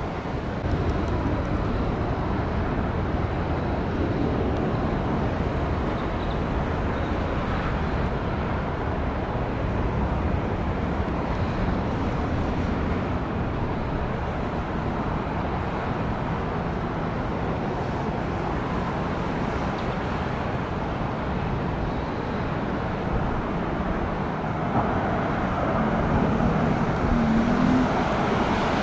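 Steady noise of jet aircraft engines at an airport, getting louder in the last few seconds as one comes closer.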